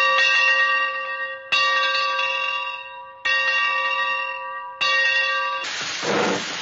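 A bell struck at slow, even intervals, about every second and a half, each stroke ringing on with several clear tones as it fades. Near the end the ringing gives way to a loud rushing, rumbling noise.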